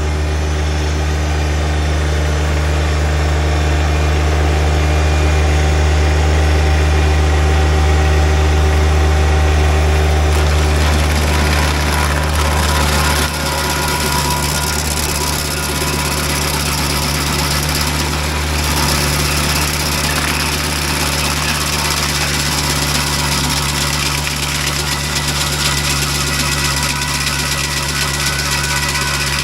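Tractor engine running steadily, driving a PTO stump grinder. About thirteen seconds in, the deep drone drops in level and a rougher, hissier sound comes up above it.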